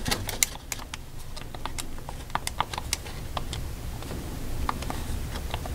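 Buttons of a handheld calculator being pressed: a run of quick, irregular plastic key clicks, several a second, as a multiplication and division are keyed in.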